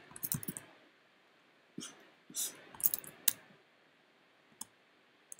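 Scattered, irregular clicks of a computer mouse and keyboard, a quick cluster at the start and several more about two to three seconds in, with single clicks near the end.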